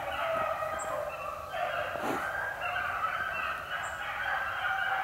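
A pack of beagles baying in full cry, several voices overlapping without a break: the hounds are running a rabbit.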